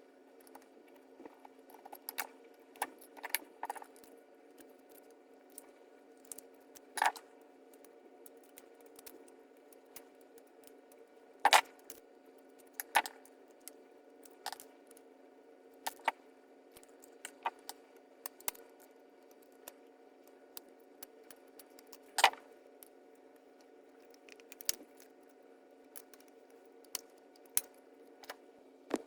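Scattered small clicks, taps and rattles from handling the Honda Civic i-Mid display's plastic housing, LCD screen and small parts by hand, some sharp and loud, about one every second or two, over a steady low hum.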